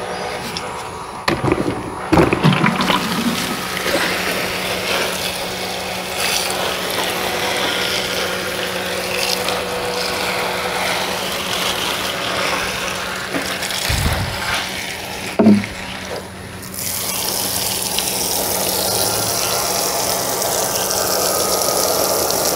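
Water running and splashing, then pouring through the plastic rose of a homemade watering can in many thin streams onto a rubber mat, turning brighter and hissier for the last few seconds. A few knocks of handling come about two seconds in and again around fourteen seconds.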